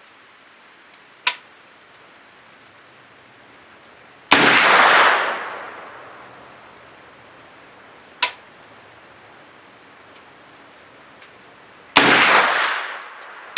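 Two shots from a Thureon Defense 9mm pistol-caliber carbine, about eight seconds apart, each with a long echoing tail. Two shorter, sharp cracks come about a second in and near the middle.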